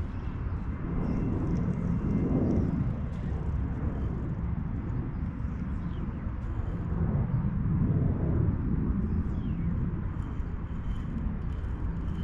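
Wind buffeting the microphone, a low rumble that swells and eases twice.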